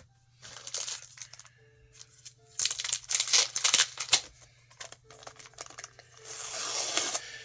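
Crinkling and rustling of plastic and paper as comic books are handled and shuffled, in a run of irregular crackles and light taps with a longer rustle near the end.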